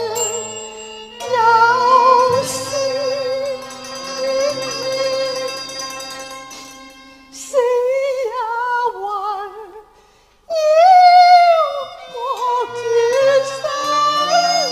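Cantonese opera singing: a high female voice sings long held notes with wide vibrato and slides between pitches, in phrases broken by short pauses, over a sustained instrumental accompaniment.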